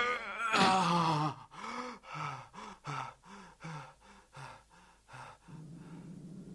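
Animated character's voice panting hard in short, pitched gasps, about two a second, after a louder falling cry at the start: out of breath from exhausting training. A steady low hum follows in the last second.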